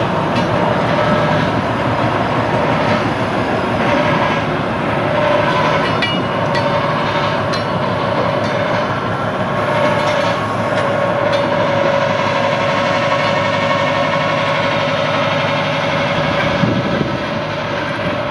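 Two diesel-hydraulic shunting locomotives, an Emu Bay class 11 and a DH class, running slowly past and away, their engines droning with a steady whine. A few clicks from the wheels on the track come mid-way.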